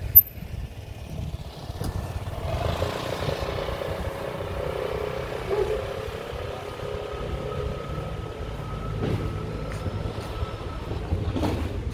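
Vespa scooter's small engine running as it rides past and away, loudest a few seconds in, then fading with distance.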